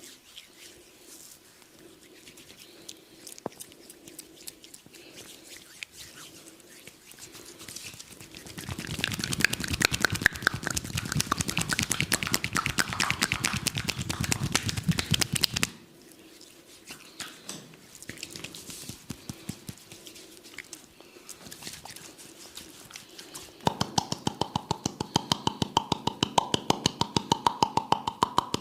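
Hands striking an oiled neck and shoulders in fast, rhythmic percussive massage strokes: a loud run of rapid slaps lasting about seven seconds, a quieter stretch of scattered light sounds, then a second fast, evenly paced run of strokes with a ringing note in them near the end.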